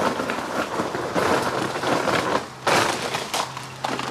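Footsteps crunching on loose gravel as someone walks across it, in irregular bursts.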